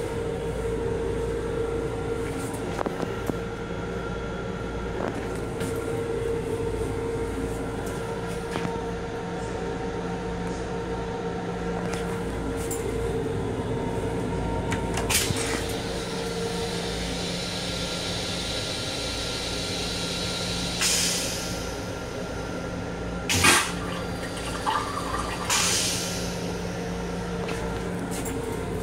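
A toilet in an M7 commuter railcar restroom flushing about halfway through, a rush lasting several seconds that ends in a louder burst, over the car's steady hum and rumble. A couple of sharp clunks follow near the end as the toilet seat is raised.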